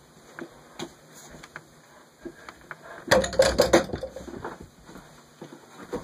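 Mini basketball hitting an over-the-door hoop, a quick cluster of knocks and rattles off the backboard and rim with a low thud through the door about three seconds in, after a few faint taps.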